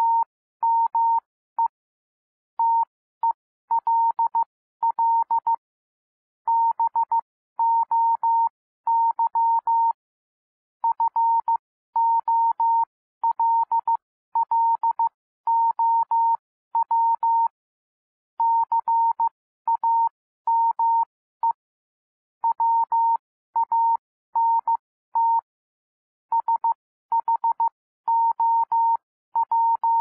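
Morse code practice tones at about 15 words per minute: a single steady-pitched beep keyed on and off in short dots and longer dashes, with longer pauses between letters and words. The tones spell out plain English words.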